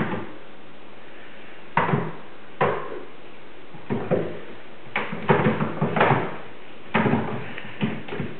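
Kittens' feet thumping and knocking on the roof overhead as they run and pounce after a laser dot. The knocks come irregularly, bunching into a quick flurry in the middle, and are heard from the room below.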